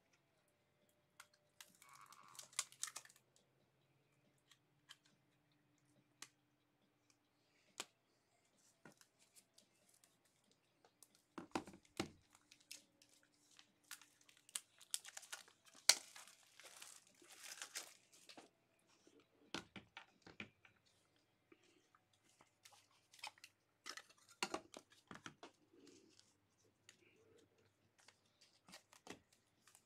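Faint plastic crinkling and small clicks of a trading card being handled into a soft sleeve and a magnetic one-touch card holder, in scattered short bursts.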